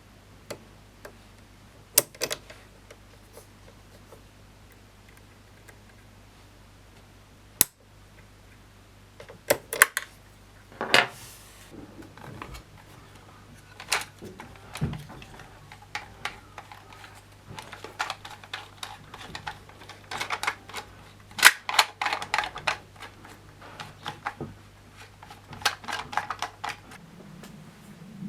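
Scattered clicks, taps and small clatters of tools and parts being handled during disassembly of a Jura Z5 espresso machine. The clatter grows busier in the second half, over a faint steady low hum.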